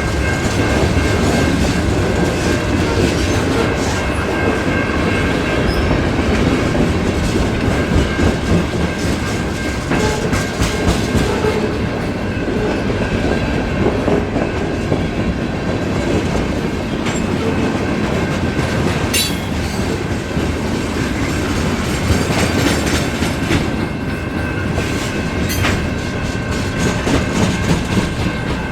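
Freight train cars rolling past on the rails, wheels clicking over rail joints, with a steady high ringing tone from the wheels and rails over the rolling noise.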